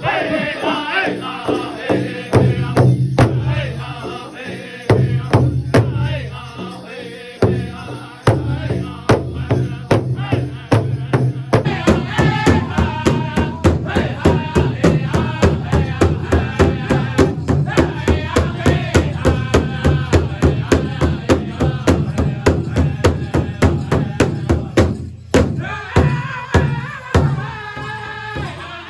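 Powwow drum group: singers chanting in high voices over a big drum. A steady, even drumbeat takes hold about halfway through and breaks off briefly near the end.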